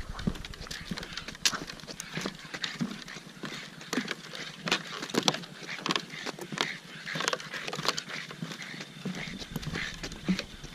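Footsteps of hikers and a leashed pug on a wooden boardwalk: an irregular run of hollow knocks on the boards, several a second.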